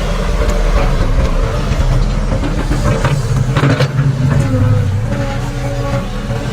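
Excavator's diesel engine running steadily, working harder for a couple of seconds past the middle, with a few sharp knocks at that time.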